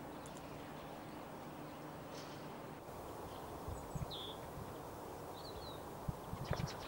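Male pine grosbeak giving short, faint whistled calls, once about four seconds in and again a second and a half later, over a steady background hiss. Near the end there is a quick cluster of sharp clicks.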